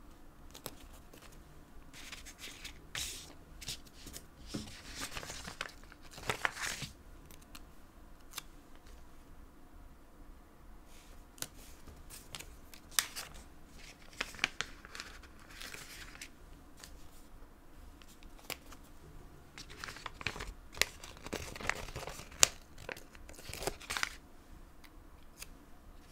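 Stickers being peeled off a backing sheet with tweezers and pressed onto paper planner pages: several short bursts of paper peeling and rustling, with small clicks and taps between them.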